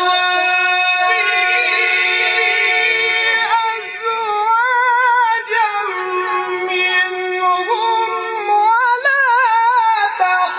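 A man's voice chanting Quran recitation (tilawat) in a melodic style, holding a long note and then sliding through wavering, ornamented runs.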